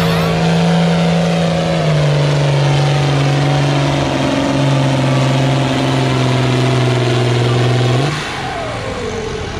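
Turbocharged diesel engine of a red International Harvester farm tractor running flat out while pulling a weight-transfer sled. Its note steps down about two seconds in as it lugs under the growing load, then falls away about eight seconds in as the throttle comes off.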